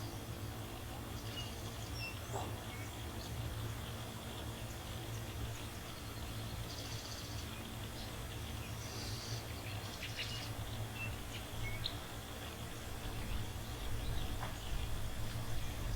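Bush ambience: scattered short bird chirps and brief buzzy insect trills over a steady high-pitched insect drone and a low steady rumble.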